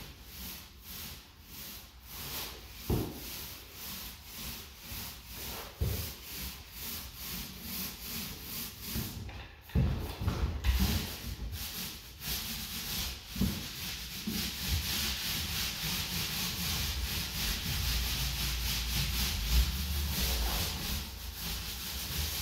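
Paint roller on an extension pole being rolled back and forth over a wall through wet paint, a rubbing hiss in repeated strokes that run together into a more continuous rub from about halfway.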